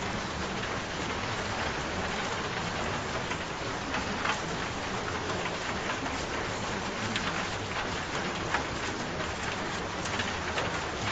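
Steady rain falling, with individual drops pattering through it.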